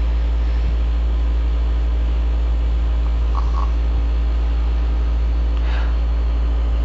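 Soft snoring breaths from a sleeper, faint, about three and a half seconds in and again near six seconds, over a steady low hum.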